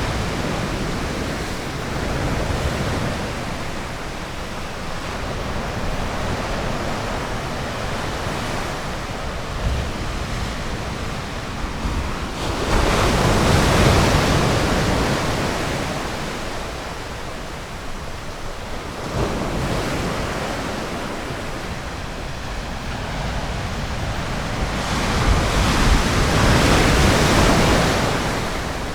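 Ocean surf washing onto a beach: a steady wash, with two louder waves breaking, one about halfway through and one near the end.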